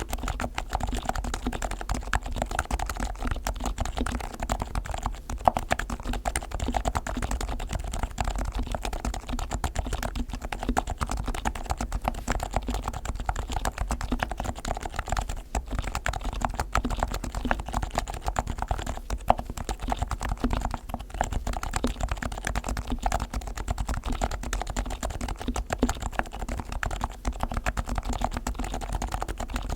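Continuous fast typing on a Leopold FC660C compact keyboard with silenced Topre electrostatic-capacitive switches, fully lubed (sliders dry- and wet-lubed, springs and stabilizers greased) and foam-dampened underneath. The keystrokes come in a dense, unbroken stream, many per second.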